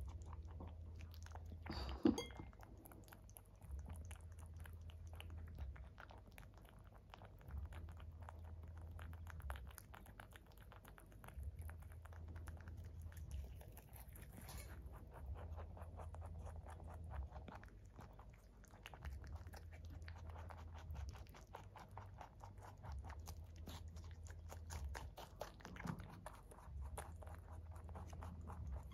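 Rabbit chewing and crunching pieces of fruit and carrot: a fast, steady run of small crunching clicks. There is a single sharp knock about two seconds in.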